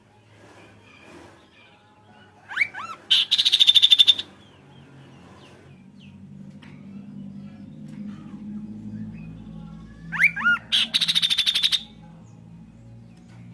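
A kaso-kaso songbird singing twice: each phrase opens with a few quick looping whistles and runs into a fast, rattling trill of about a second. A faint low hum sits underneath in the second half.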